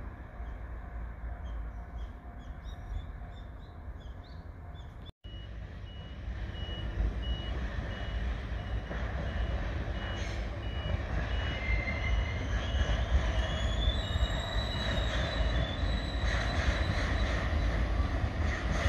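JR Freight HD300 hybrid shunting locomotive hauling a train of tank wagons as it approaches, its running noise growing louder, with a whine that rises near the end. A short high beep repeats evenly through the middle.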